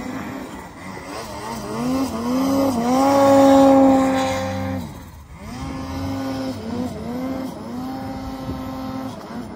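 Ski-Doo Summit Expert snowmobile's turbocharged two-stroke engine revving as the sled carves through deep powder. It is loudest and held high about three to four seconds in as the sled comes closest, drops off sharply near five seconds, then rises and falls again with repeated throttle blips.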